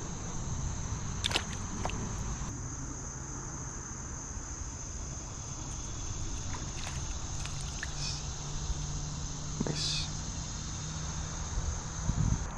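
Insects chirring in a steady, unbroken high drone, with a few faint clicks.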